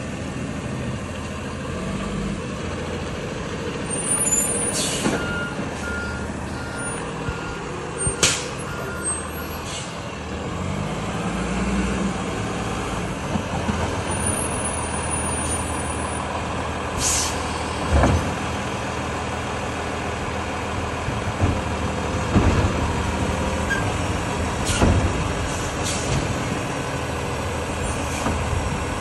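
Heavy truck's engine running steadily at low speed, punctuated by several short, sharp air-brake hisses. A reversing alarm beeps repeatedly for a few seconds about five seconds in.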